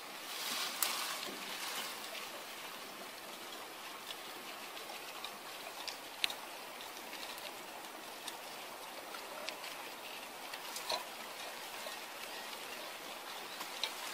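Wet sand and shallow seawater being worked by gloved hands: a steady faint watery hiss with scattered small clicks and wet crackles, and a louder splashy rush about a second in.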